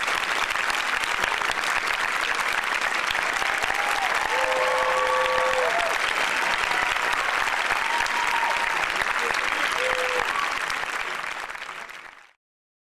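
Audience applauding steadily, with a few cheers rising above the clapping about four seconds in and again later; the applause fades and cuts off to silence near the end.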